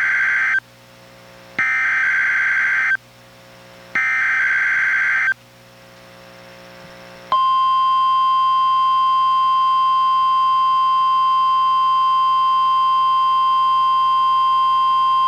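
NOAA Weather Radio Specific Area Message Encoding (SAME) header bursts: the end of one burst of warbling digital data tones, then two more about a second and a half long each, with faint radio hiss between them. About seven seconds in, the steady 1050 Hz NWR warning alarm tone starts and holds at one pitch, sounded here as a test of the receivers' warning alarm.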